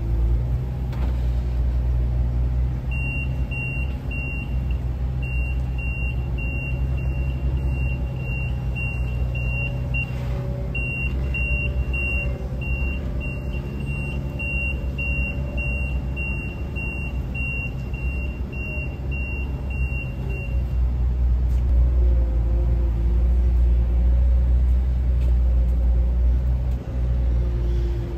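Linde forklift's engine running with a low rumble while it moves a heavy load. Its warning beeper sounds a rapid, regular series of short high beeps from about three seconds in until about two-thirds of the way through. The engine gets louder near the end.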